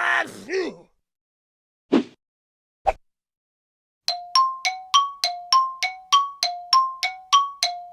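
Cartoon bell sound effect: two ringing bell-like tones struck alternately, low then high, about three strikes a second, starting about four seconds in. Before it, the tail of a cartoon groan and two short knocks.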